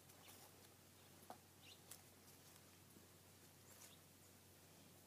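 Near silence: faint outdoor background with a few faint, short high-pitched ticks.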